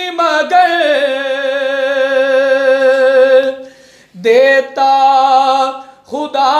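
A man singing a naat (Urdu devotional poem) unaccompanied, holding long wavering notes on a line, with a short break about four seconds in before he starts the next phrase.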